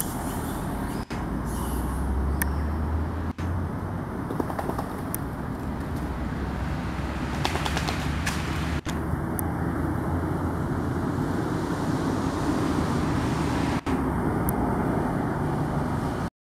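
Steady road traffic noise from vehicles on the road nearby, with a low engine rumble in the first few seconds. Faint monkey or bird sounds come through now and then.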